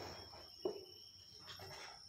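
A hoe blade strikes once into a pile of soil and stones, a short sharp chop about two-thirds of a second in, with a few fainter scrapes after it.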